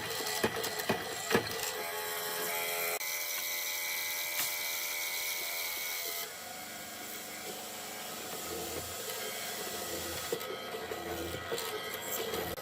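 A few knocks on wood, then a small power tool running on wood with a steady whine that changes abruptly about six seconds in.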